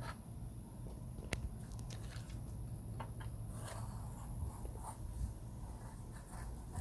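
Faint handling noises: a few sharp clicks and light rustling over a steady low hum.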